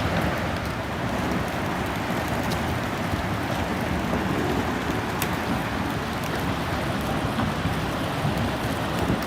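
Moving ice flows and water: a steady rushing noise with a few faint ticks.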